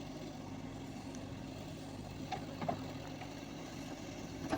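JCB 3DX backhoe loader's diesel engine idling steadily, with a couple of light knocks a little past halfway.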